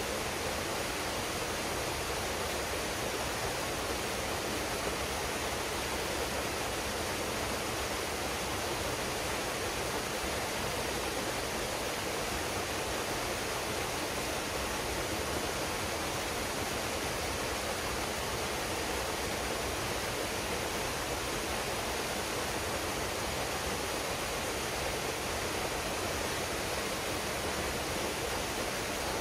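Waterfall pouring into a pool: a steady, even rush of falling water with no change throughout.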